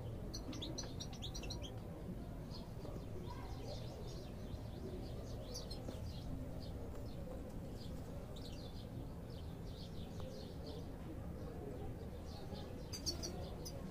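European goldfinches twittering in short, high chirps that come and go, over low background noise.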